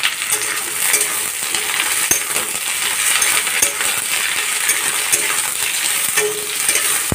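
Sliced pointed gourd and green chillies sizzling steadily in hot oil in a wok, stirred with a metal spatula that scrapes and clinks against the pan now and then.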